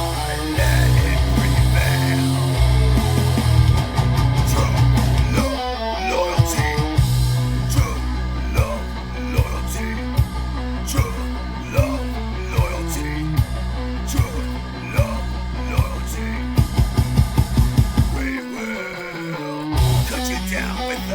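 Heavy metal song: distorted electric guitar over heavy bass and drums, with a quick run of drum hits near the end and the low end dropping out briefly just before the close.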